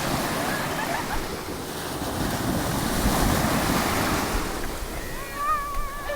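Surf washing on the beach with wind buffeting the microphone, the noise swelling around the middle. A short wavering high-pitched call is heard near the end.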